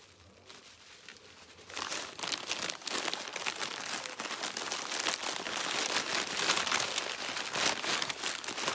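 Gift wrapping handled and pulled apart: tissue paper and plastic packing wrap crinkling and rustling, starting about two seconds in and going on steadily.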